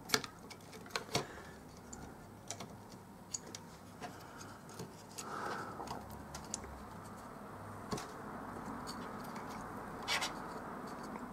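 Scattered light clicks and taps of hands handling a small circuit board and pressing an LCD display module onto it, with a couple of sharper clicks in the first second or so.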